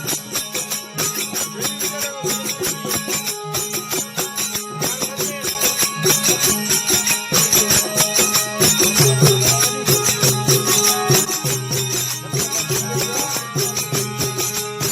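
Instrumental passage of a Rajasthani desi veena bhajan: a steady drone under a melody line, over a fast, even percussion beat.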